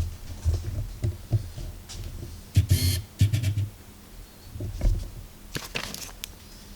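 Handling noise from a cardboard fireworks cake box being picked up, turned over and moved about: irregular soft bumps and clicks, with short scraping rustles about three seconds in and again near the end.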